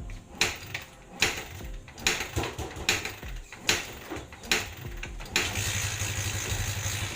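Kawasaki Barako 175's single-cylinder four-stroke engine being kick-started: a run of sharp kicks and brief sputters about a second apart, then it catches a little over five seconds in and runs steadily. The engine is hard starting and keeps dying after it fires.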